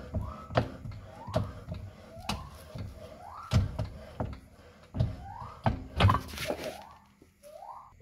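Perodua Viva rear alloy wheel being rocked back and forth on its hub and pulled, giving repeated knocks and clunks, with a longer scraping rush about six seconds in as the wheel comes off with the brake drum still stuck inside it.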